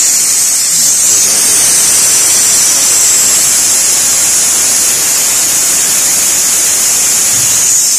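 Pressurised nitrogen escaping from a refrigeration system in a steady, loud hiss, as the nitrogen charge from the leak-tightness pressure test is bled off.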